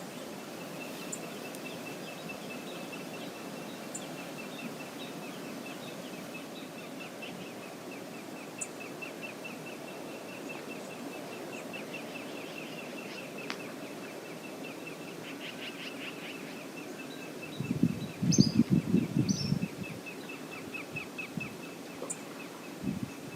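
Outdoor riverside ambience: a steady rushing background with a continuous high, rapidly pulsing trill running through it. About eighteen seconds in comes a couple of seconds of louder low rumbling.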